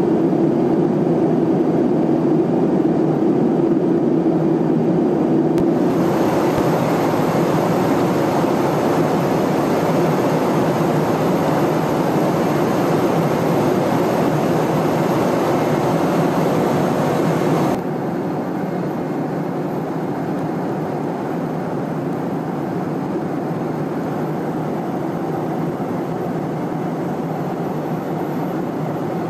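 Steady drone of jet aircraft in flight: dense rushing noise with a low hum. The sound shifts abruptly about six seconds in, and again about eighteen seconds in, where it drops a little in level.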